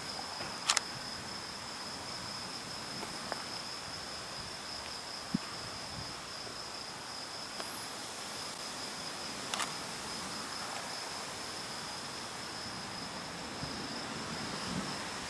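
Crickets chirping in a steady, continuous high trill. Two sharp clicks, one about a second in and one near ten seconds in, stand out above it.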